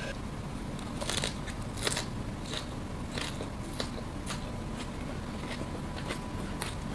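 Close-up crunching and crackling of a mouth biting and chewing raw vegetables: a bundle of raw leaves wrapped around long beans. The crunches come irregularly, with the sharpest about one and two seconds in.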